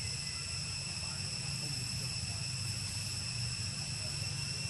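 Steady chorus of insects, several unbroken high-pitched tones at once, over a low constant rumble.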